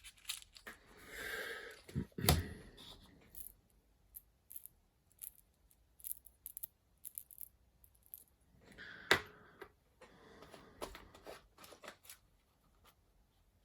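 Watchmaker's assortment boxes of watch crowns being handled: a string of small clicks and taps, with a sharper knock about two seconds in and another about nine seconds in, each with brief rustling around it.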